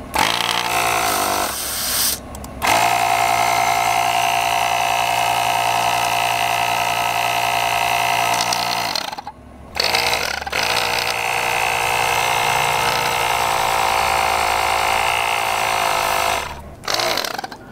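Slime cordless tire inflator's small battery-powered compressor running steadily as it pumps air into a tire through the valve stem. It cuts out briefly twice and starts again, and stops near the end.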